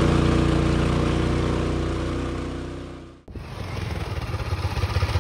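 Rokon Trail-Breaker two-wheel-drive motorbike engine running steadily at low revs while riding, fading away about three seconds in. Then an engine is heard again as a choppier, pulsing sound at low revs.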